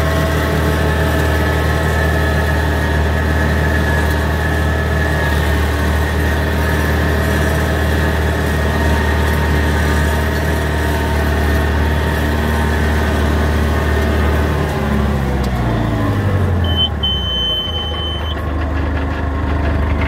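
Antonio Carraro TC5800f tractor running steadily with its offset flail mower working. About fifteen seconds in, the engine speed falls and the pitch drops as the machine winds down. Soon after, a high electronic beep sounds briefly and then again for over a second.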